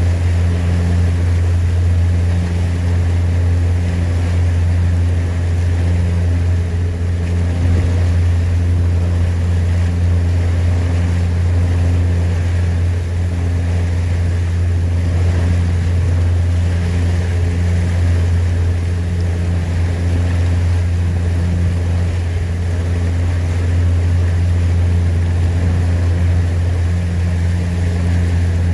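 Steady marine engine drone: a loud, deep, unchanging hum with a few fainter overtones above it, over a hiss of running noise.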